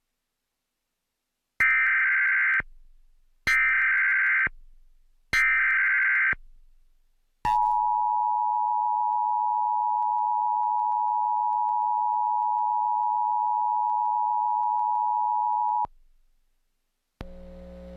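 Emergency Alert System activation: three short bursts of SAME header data, each a warbling digital chirp about a second long with a second's gap between them. These are followed by the EAS attention signal, a steady two-tone beep held about eight seconds that stops abruptly. Together they announce that an emergency alert message follows. A low hum starts near the end.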